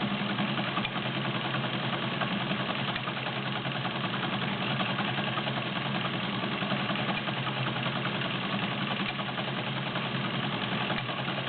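Vintage all-metal Penncrest zigzag sewing machine running steadily and stitching without pause while sewing a creative embroidery zigzag pattern, its motor hum and needle mechanism going at a constant speed.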